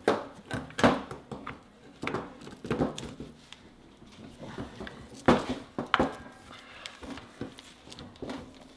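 Honda CB450 rear drum-brake shoes and their coil return springs clicking and knocking against the brake panel as the new shoes are pulled apart and worked down onto their pivots: a series of irregular metallic clicks, the loudest about five seconds in.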